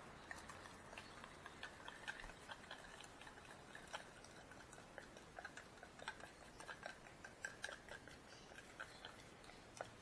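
Small plastic spoon stirring a thick hand-feeding formula paste in a small cup, scraping and clicking irregularly against the cup's sides and bottom.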